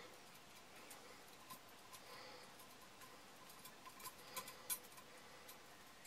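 Faint clicks and light ticks of a coat-hanger wire bird trap and its snare wire being handled and adjusted, with a short run of sharper clicks a little after four seconds in.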